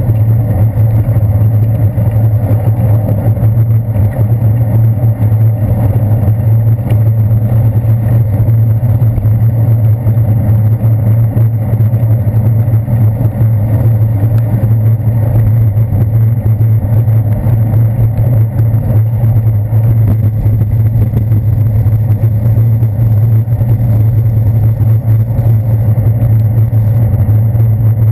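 Steady rumble of wind and road vibration picked up by a handlebar-mounted GoPro on a bicycle riding on wet city streets, with traffic noise mixed in. It is loud and even, with a deep hum that never lets up.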